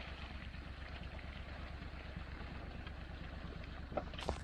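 A lifted golf cart's small engine runs steadily as the cart works its way through deep mud, with a couple of short knocks near the end.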